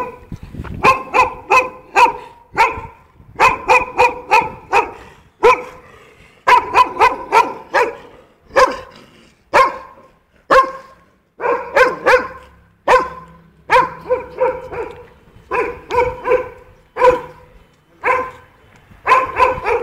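Small dog barking repeatedly: high-pitched barks in quick runs of two to five, with short pauses between the runs.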